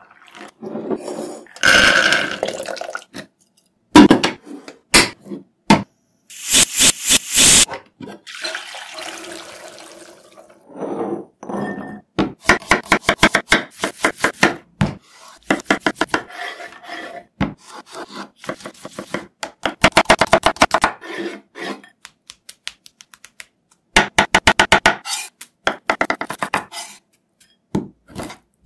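Food-prep sounds: hands rummaging through raw peanuts in a glass bowl, then a chef's knife chopping red onion and other vegetables on a wooden cutting board in quick runs of strikes, several a second.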